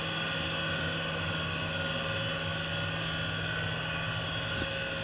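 Steady machinery hum holding several fixed tones, with a brief click near the end.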